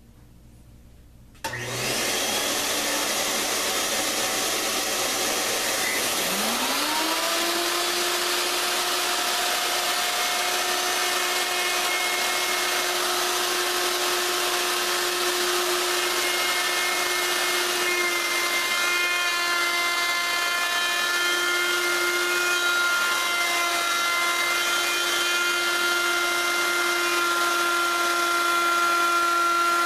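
A loud, steady rushing noise starts suddenly about a second and a half in. About six seconds in, a router motor spins up with a quick rising whine and then runs at a steady high pitch, trimming the solid maple edge band under the tabletop.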